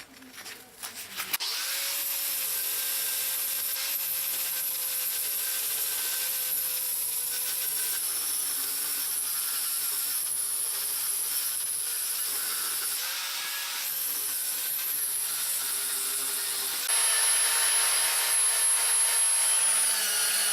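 A small electric power tool starts after a few clicks and then runs with a steady whine while abrading a workpiece. Its pitch dips briefly past the middle, and it gets louder near the end.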